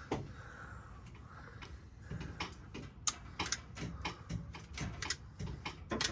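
Irregular sharp clicks and snaps from a hand-held wire stripping and crimping tool being worked on fuel pump wiring, coming faster from about two seconds in.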